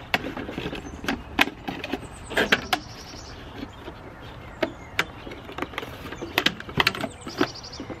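A cardboard box being handled while rubber bands are stretched around it to hold it shut: a run of sharp taps and clicks, with brief rustling and scraping of the cardboard.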